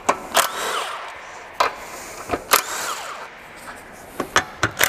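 Impact gun with a 10 mm socket undoing nuts, running in several short bursts.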